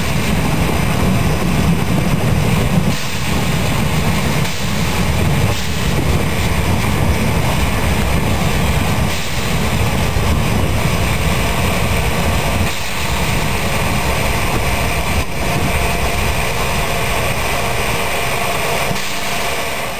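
Metre-gauge steam tank locomotive 99 6101 running, heard from its cab: a steady, dense rumble that does not let up.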